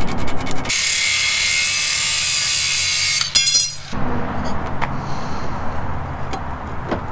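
Cordless angle grinder cutting a metal flat bar: a loud, harsh hiss for about two and a half seconds starting just under a second in, then the motor's whine winding down. A few light metal clinks follow.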